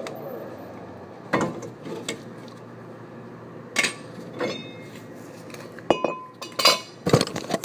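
Metal tools and brake parts clanking and clinking as they are handled, about seven sharp, irregular knocks, a few of them ringing briefly.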